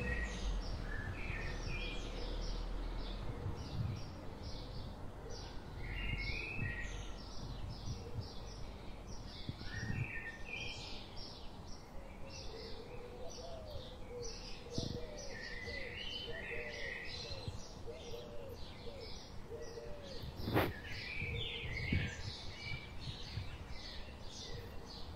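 Several small birds chirping and twittering. Midway, a lower-pitched call repeats as a string of about a dozen short notes. Low wind noise runs underneath, with a single knock about twenty seconds in.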